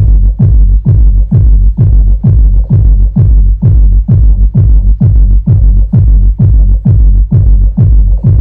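Electronic dance music played loud through a 1200-watt and an 800-watt PA speaker wired together on one channel of an Ace LX20 power amplifier. A heavy kick drum pounds about twice a second over a continuous deep bass.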